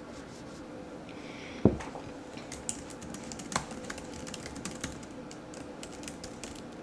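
A single thump about a second and a half in, then irregular clicking of typing on a computer keyboard.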